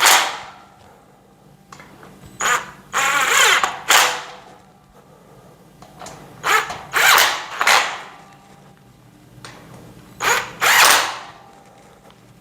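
Power drill-driver driving screws into a metal shelf frame in short bursts of a second or less, grouped in three clusters, as the last screws are tightened down.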